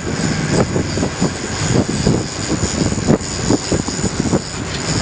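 Wind buffeting the microphone in irregular, gusty low rumbles on an open boat.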